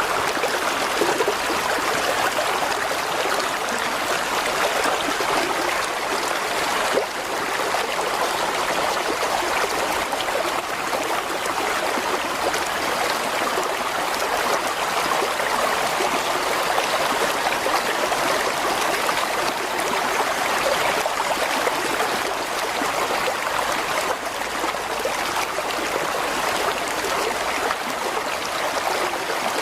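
A mountain stream flowing, a steady rush and babble of water over rocks.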